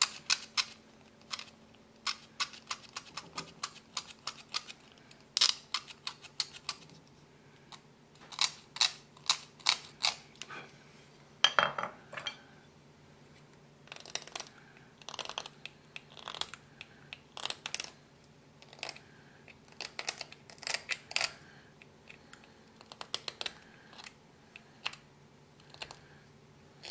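Small hand carving blade shaving and scraping hard tagua nut (vegetable ivory), in quick, sharp strokes that come in irregular clusters with short pauses between.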